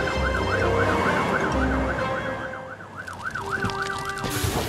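Fire truck siren wailing rapidly up and down, about three sweeps a second, over background music, cutting off just before the end.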